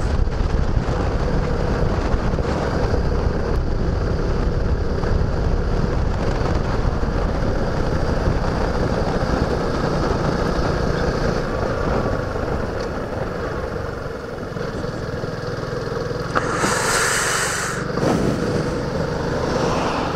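Suzuki Gixxer single-cylinder motorcycle engine running steadily while riding, with wind rumble on the helmet-camera microphone. Near the end a brief rush of hiss lasts about a second and a half.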